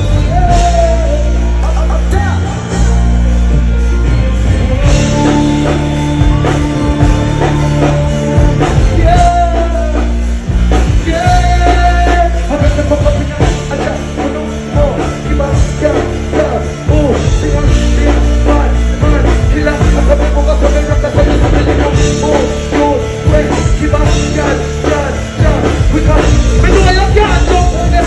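Loud music from a live stage performance, with a heavy bass line and a singing voice.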